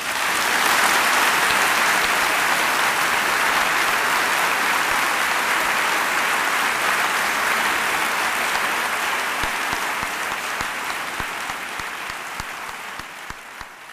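Audience applauding, starting at once and dying away gradually near the end.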